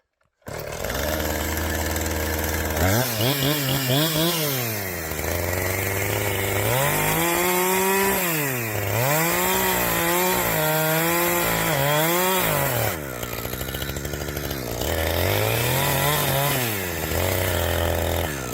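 Chainsaw engine starting up about half a second in, then revved up and down again and again, its pitch rising and falling every second or two.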